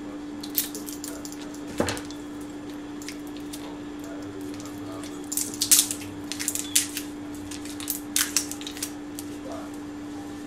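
A knife and a Worcestershire sauce bottle being handled: scattered light clicks and taps, a quick cluster of them around the middle, over a steady low hum.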